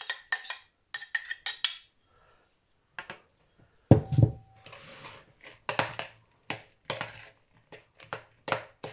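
A spoon scraping chopped egg and green onion out of a small bowl into a larger plastic bowl, then a loud knock about four seconds in as the small bowl is set down on the counter. After that come regular scraping strokes, about three a second, as the filling is stirred with the spoon against the plastic bowl.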